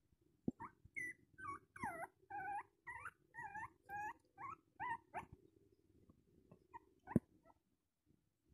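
Three-week-old Indian spitz puppy whimpering: a run of about ten short, high cries, each bending in pitch, over the first five seconds. A single sharp tap follows about seven seconds in.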